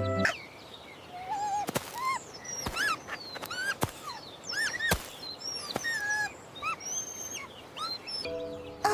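Small birds chirping: short high chirps and quick rising-and-falling whistles, with a few sharp clicks among them. Background music comes back in near the end.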